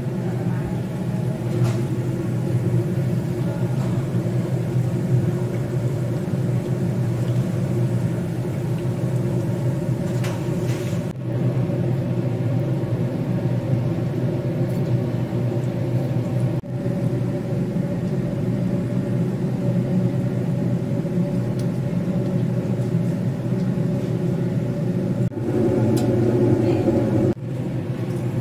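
A steady low machine hum and rumble, with a light hiss above it.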